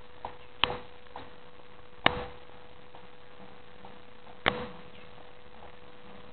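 Three sharp clicks, each a second and a half to two and a half seconds apart, with fainter ticks between them, over a steady faint hum and hiss.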